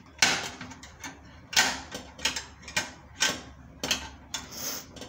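Steel surgical forceps and clamps clinking against each other and the stainless steel tray as they are handled and picked out, about nine sharp, irregular metallic clicks.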